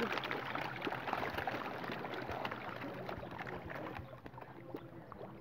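A crowd of fish thrashing and splashing at the pond surface as they feed on thrown fish-feed pellets: a dense crackle of small splashes that thins out after about four seconds.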